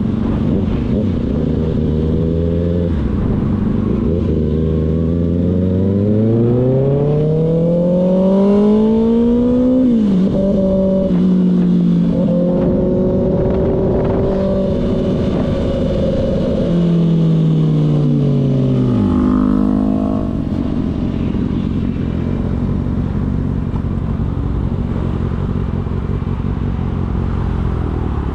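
Kawasaki ZX-6R inline-four sport bike engine pulling hard, its pitch climbing steadily, then dropping suddenly at an upshift about a third of the way in. It holds steady briefly, then falls away as the throttle rolls off, leaving a low engine rumble under steady rushing noise for the last third.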